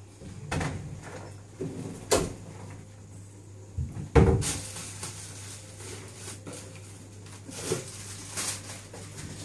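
A few short knocks and clatters with some rustling, the loudest about four seconds in, over a steady low hum.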